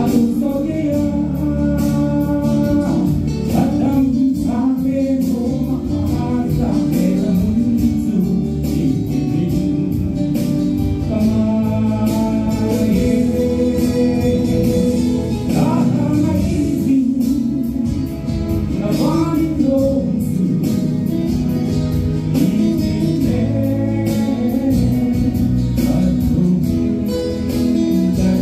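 Male vocalist singing a gospel song through a handheld microphone and PA, over instrumental accompaniment with a steady beat.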